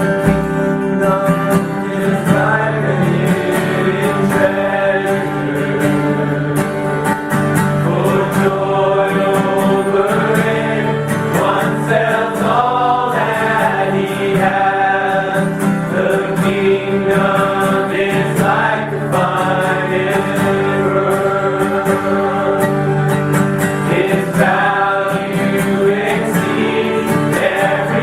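Gospel music: a choir singing over instrumental accompaniment.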